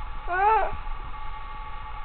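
A baby's short, high squeal, rising then falling in pitch, about half a second long, near the start.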